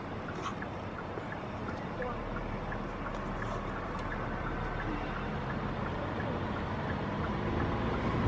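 Steady rushing noise of a swollen, fast-flowing river heard from an open car window, mixed with a low car rumble that grows stronger from about two seconds in.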